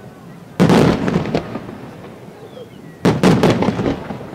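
Aerial firework shells bursting: two volleys of several quick bangs each, about two and a half seconds apart, each dying away in an echo.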